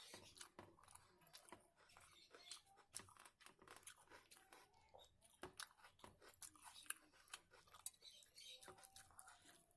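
Faint, close-up chewing and mouth sounds of someone eating a meal of rice and chicken curry, with irregular small crunches and wet clicks.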